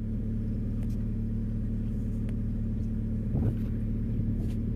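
Vehicle engine idling with a steady low hum, with a brief low swell about three and a half seconds in.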